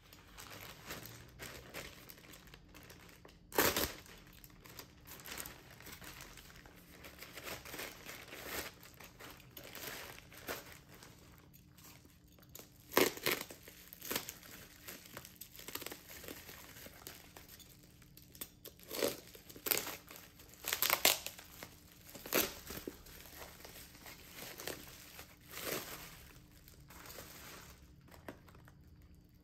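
Thin plastic mailer bag and inner plastic wrapping crinkling and rustling as they are handled and torn open by hand, with a few sharp, louder crackles, the loudest about 4, 13 and 21 seconds in. The rustling eases off near the end.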